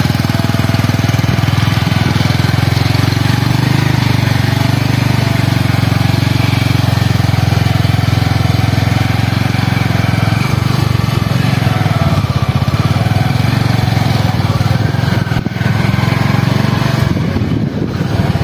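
Honda motorcycle engine running steadily at low road speed, heard close from the bike itself.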